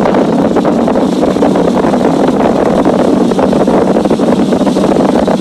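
Outboard motor running at speed while towing a tube, together with rushing wake water and wind blowing on the microphone, as one loud, steady noise.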